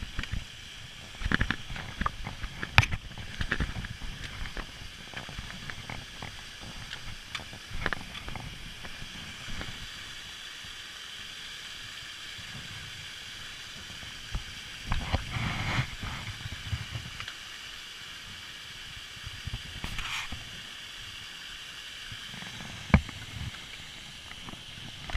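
Steady rushing hiss of a small waterfall cascading over granite ledges, broken by occasional sharp knocks and low thumps of the handheld camera being handled, the loudest knocks about three seconds in and again near the end.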